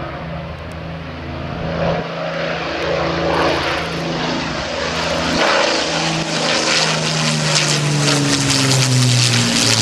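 de Havilland Mosquito's twin Rolls-Royce Merlin V12 engines running in a low flypast, the propeller and engine sound growing steadily louder as the aircraft comes close.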